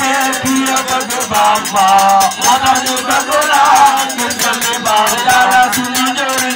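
A man singing through a microphone and loudspeaker in long, bending melodic lines, over a steady rhythmic rattling percussion.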